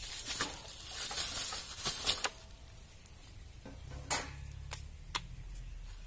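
Thin plastic bag crinkling and rustling as fish are shaken out of it onto an aluminium plate. After that, three light knocks as the fish are handled on the metal plate.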